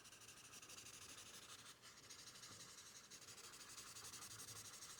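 Faint rubbing of a blending tool on drawing paper, working graphite shading in small circles.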